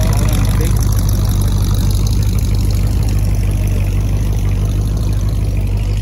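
A car engine idling steadily.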